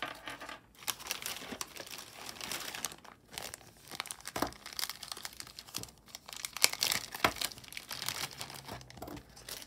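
Thin clear plastic bag crinkling and rustling as hands work a bangle out of it: a dense, irregular crackle.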